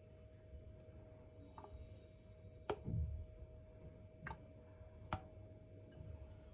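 A few light clicks and knocks of kitchen utensils and containers being handled, about four in all, the loudest near the middle with a short low thud after it, over a faint steady hum.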